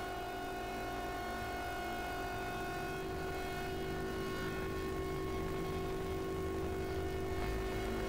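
Ominous electronic drone: a held chord of several steady tones, like a distant horn, slowly growing louder, with a deep low rumble swelling in near the end.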